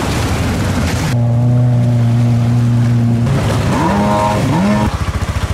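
Racing jet ski engine running: a steady hum that swoops up and down in pitch as the throttle is blipped, then changes to a fast, even pulsing near the end.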